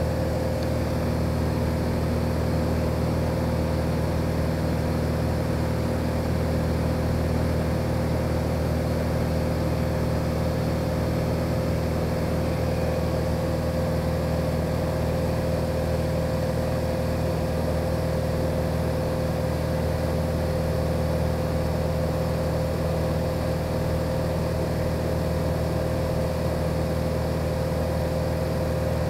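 Cessna 182G Skylane's Continental O-470 six-cylinder engine and propeller running steadily in flight, heard inside the cockpit as an even, unchanging drone.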